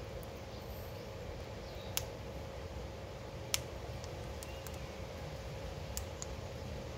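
Ringneck parrot's beak clicking as it bites at a guava: three sharp, short clicks a couple of seconds apart, over a steady faint hum and background noise.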